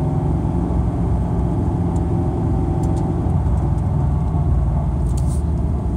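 2013 Scion FR-S's flat-four engine, with an equal-length header, catless front pipe and Invidia N1 exhaust, heard from inside the cabin while driving. The engine tone is steady, and its upper tones fade into road noise about halfway through.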